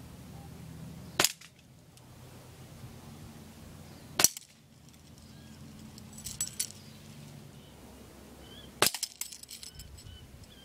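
Three .177 air rifle shots, each a sharp crack, about three to four and a half seconds apart. Small clicks come between the second and third shots, and a rattle of clicks follows the last one.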